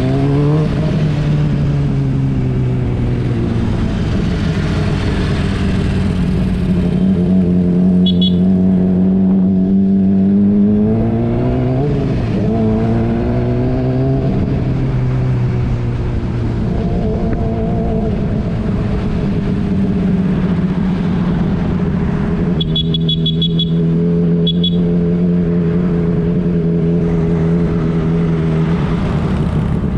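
Motorcycle engine running under way with wind rushing past, holding a steady pitch most of the time; it rises about a second in, climbs again around the middle and then drops back as the rider speeds up and eases off.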